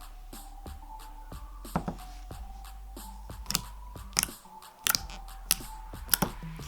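Slime being squished and pressed by hand, its trapped air bubbles popping in sharp, irregular clicks, over faint background music.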